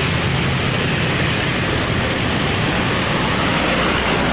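Steady road traffic noise: the engines and tyres of passing cars, motorcycles and a truck close by, with a low engine hum.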